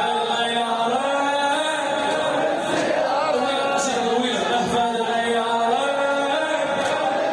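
A male reciter chanting a religious lament in long, sustained melodic lines, unaccompanied and without added audio effects.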